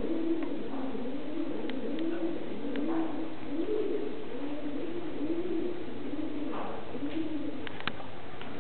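Many pigeons cooing at once, their low, repeated, overlapping calls running on without a break, with a few faint sharp clicks now and then.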